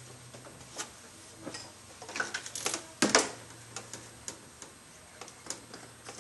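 Scattered light clicks and knocks of metal parts as a Volvo 2.4T intake manifold is handled and fitted onto the cylinder head, the loudest knock about three seconds in.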